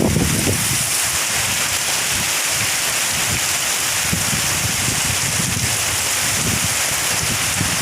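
Heavy monsoon rain pouring steadily, a dense even hiss of downpour, with low gusty rumbles of wind buffeting the microphone now and then.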